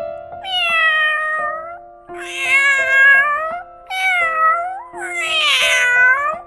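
Domestic cat meowing: four drawn-out meows in a row over soft background music with held notes.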